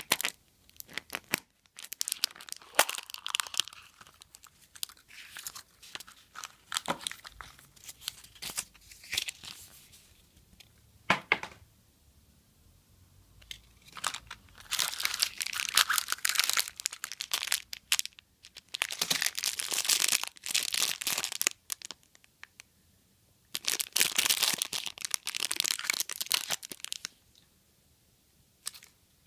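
Thin foil wrapper being peeled and torn off a plastic surprise egg, with scattered sharp crackles and clicks in the first half, then three long spells of loud crinkling of wrapper and clear plastic packaging in the second half.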